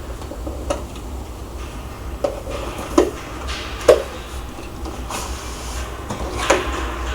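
Cardboard packaging rustling and scraping as a keyboard is pulled out of its box, with several sharp knocks, the loudest about three and four seconds in.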